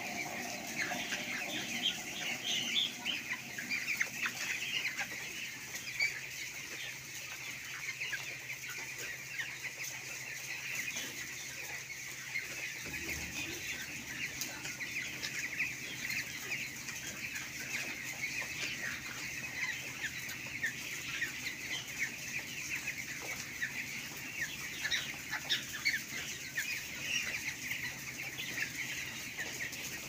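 A large flock of broiler chickens calling all at once, a dense, steady chorus of short cheeps and clucks. A faint low hum joins about halfway through.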